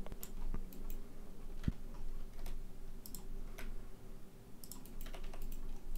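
Irregular clicks of a computer keyboard and mouse, about a dozen sharp taps scattered a fraction of a second to a second apart, over a faint steady hum.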